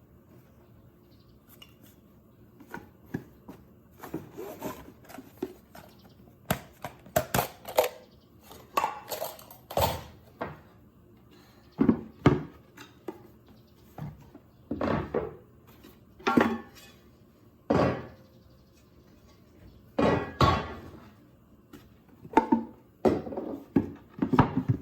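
Solo-camping gear being handled: irregular clinks and knocks of metal cookware and utensils being picked up, set down and fitted together.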